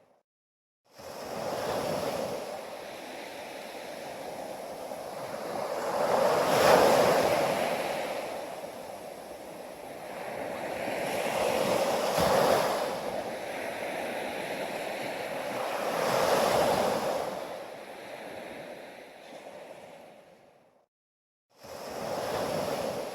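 Sea waves breaking on a beach: a steady hiss of surf that swells to a louder crash three times, roughly every five seconds. The sound drops out to silence for about a second at the start and briefly again near the end.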